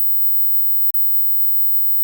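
Very high-pitched pure test tone of a hearing test, above 16 kHz and held steady, with a single sharp click about a second in.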